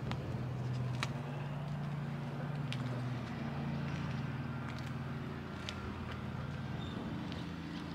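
A motor running with a steady low hum, with a few faint sharp clicks over it.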